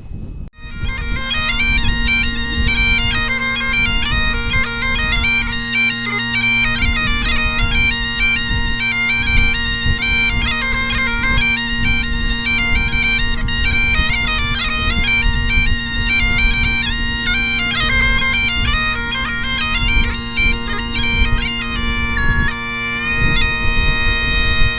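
Highland bagpipes playing a tune, the chanter melody moving over steady, unbroken drones, with wind rumbling across the microphone.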